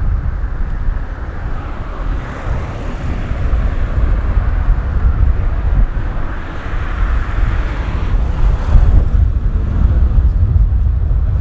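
Three-cylinder Peppercorn A1 Pacific steam locomotive 60163 Tornado approaching while working a train, heard as a steady mix of deep rumble and hiss that swells and fades.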